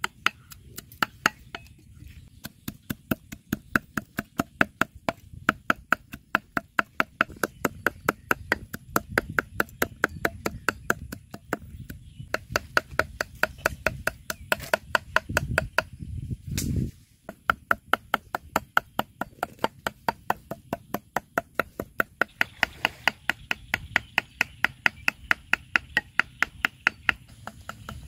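Steel cleaver chopping meat on a wooden chopping block: a steady run of quick strikes, about three a second, each with a short metallic ring. The chopping breaks off twice, and about two-thirds of the way through there is a brief low rumble.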